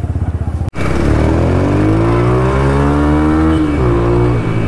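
Yamaha YB125Z DX's single-cylinder four-stroke engine through an aftermarket Hayabusa-style exhaust, idling with an even pulse. After a sudden break it is pulling away under throttle, its note rising steadily, then dipping once near the end and holding.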